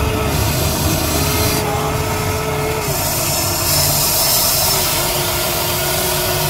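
Huina RC excavator's small electric motors whining as the arm and bucket dig and lift mud, over a steady low rumble. The whine shifts in pitch each time a movement starts and stops.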